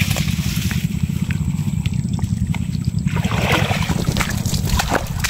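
Water splashing and running off as a bamboo fish trap is lifted out of shallow water. The loudest splashing comes about three seconds in, with small knocks and rustles of bamboo and grass, over a steady low rumble.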